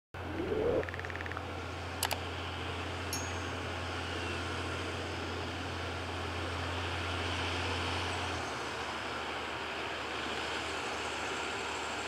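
John Deere 7530 tractor running steadily as it pulls a five-furrow plough through the soil, with birds calling in the background. A short rising sound at the very start and a sharp click about two seconds in.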